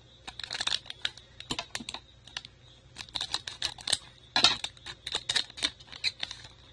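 Baseball trading cards being handled and shuffled: an irregular run of quick dry clicks and rustles as the cards slide and tap against one another, with the loudest flurry about four and a half seconds in. A faint steady high whine sits underneath.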